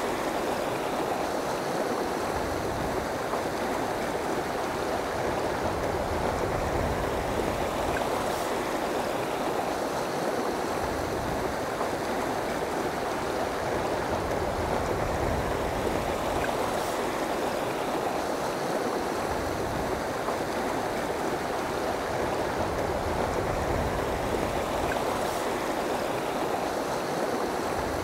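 Steady rushing of a shallow, rocky river flowing over and around boulders, an even wash of water noise.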